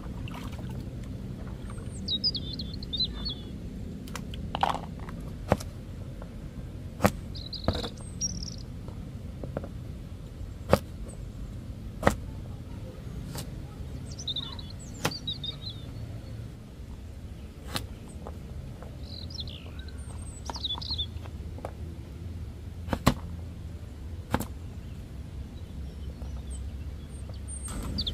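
Cleaver chopping jengkol beans on a plastic cutting board: single sharp knocks at irregular intervals, one every second or two. Birds chirp now and then in the background.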